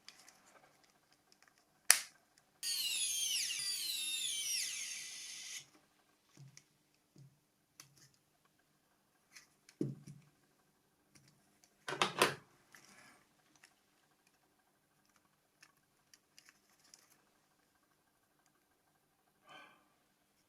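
Sharp plastic clicks and small knocks from handling and snapping together a Nokia C5 phone's parts, loudest about two seconds in and again about twelve seconds in. Near the start there is also a high hissy sound of about three seconds made of many quick falling chirps.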